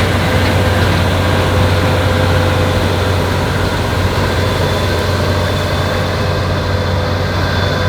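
Claas Lexion 8900 combine harvester running steadily under load while harvesting wheat: a deep, even engine drone with a strong low hum and a wash of machinery noise.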